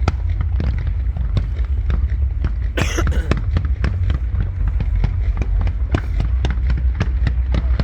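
Fireworks going off: a quick, irregular run of sharp pops and bangs, with a brighter crackling burst about three seconds in, over a steady low rumble.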